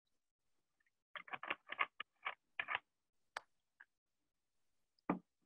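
A quick run of about ten sharp taps over a video call, then two single knocks, with silence in between.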